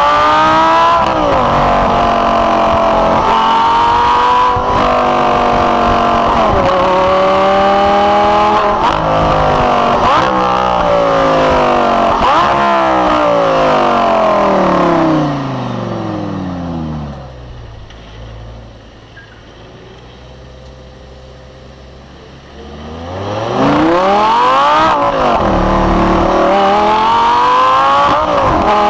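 Lamborghini Gallardo LP560-4's V10 accelerating hard through the gears, its pitch climbing and dropping back at each upshift. About fifteen seconds in it winds down with falling pitch and settles to a low, quieter idle for several seconds, then revs up sharply again and climbs through the gears once more.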